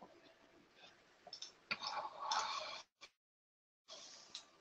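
Faint computer keyboard typing and mouse clicks, a scattered run of short keystroke ticks with a second-long pause near the middle.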